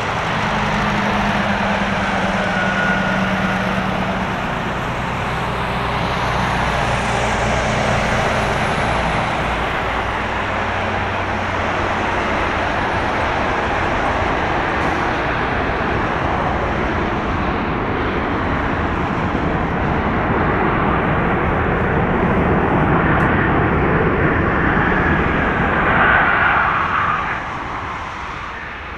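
Boeing 737-800's CFM56-7B jet engines during landing and rollout: a continuous loud jet noise that swells as reverse thrust is applied after touchdown, then falls off sharply near the end as the reversers are stowed and the engines spool down. At the start a steadier low hum from another jetliner's engines idling in the foreground sits under it.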